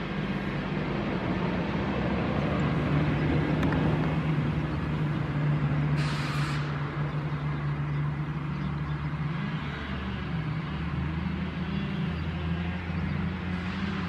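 Highway traffic: a heavy vehicle's engine drones steadily, its pitch wavering, with one short hiss about six seconds in.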